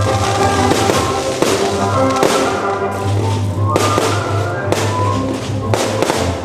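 Fireworks going off, a sharp bang roughly every second, over loud music.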